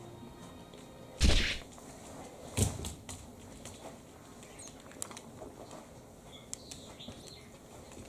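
A cockatiel scuffling with a towel on a hard floor: two loud flurries about a second and a half apart, then soft scattered clicks and a few faint chirps.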